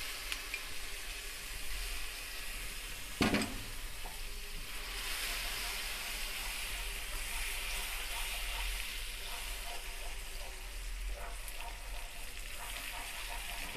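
Butter sizzling and bubbling as it melts into hot caramelised sugar in a non-stick pan, the first step of butterscotch, stirred with a wooden spoon. One sharp knock about three seconds in.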